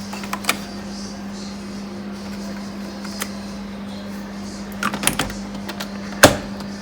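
Plastic clicks and knocks from handling a Bosch Tassimo coffee machine: a few light clicks, a cluster about five seconds in, and one sharp, loud click near the end, over a steady low hum.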